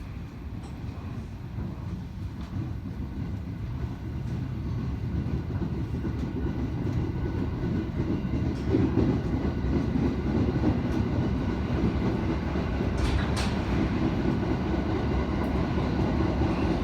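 Train running noise heard from inside a passenger car: low rumble of wheels on rail that grows steadily louder as the train picks up speed, with a couple of brief sharp clicks about three-quarters of the way through.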